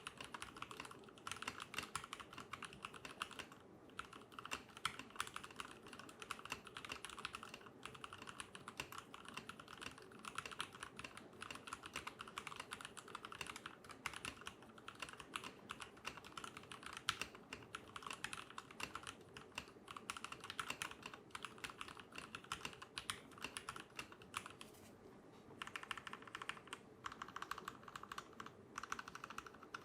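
Typing on a CM64 custom mechanical keyboard fitted with Krytox-lubed milky yellow linear switches: a fast, uneven stream of soft key clacks, with a few short pauses.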